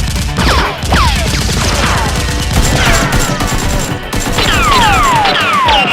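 A burst of rapid gunfire sound effects mixed with several falling whistling tones, like bullets whizzing past. Music plays underneath.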